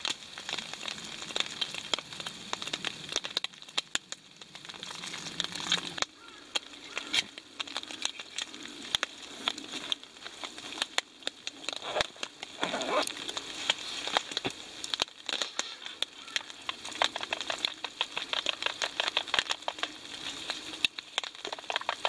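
Quick repeated clicks and scrapes of a spoon stirring egg-and-banana pancake batter in a plastic bowl, the strokes coming faster and more evenly in the second half.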